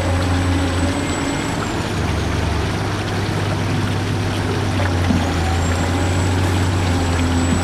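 Radio-controlled model excavator running: a steady low mechanical hum with a thin high whine that drops about two seconds in and climbs back up about five seconds in.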